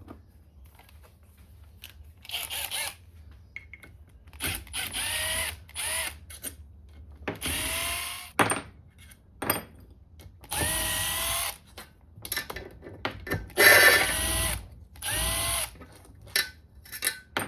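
A battery power drill spinning out the already-loosened 8 mm crankcase bolts of a KTM 450 EXC engine in several short runs, the pitch rising as the motor spins up each time.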